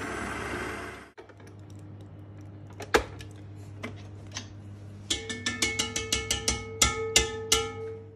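Stand mixer running, then switched off about a second in; a click as its head is tilted up, then a fast run of about fifteen taps of the wire balloon whisk on the stainless steel bowl, some five a second, knocking the batter off, with the bowl ringing after each tap.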